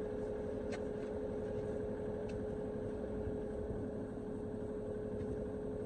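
Mini excavator engine running steadily at a constant speed: an even low rumble with a steady, unchanging whine.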